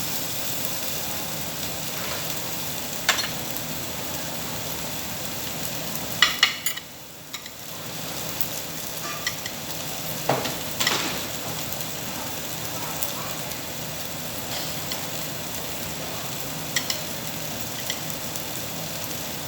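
Meat sizzling steadily on a tabletop Korean barbecue grill, with a few short sharp clicks of utensils against the grill and a brief lull in the sizzle partway through.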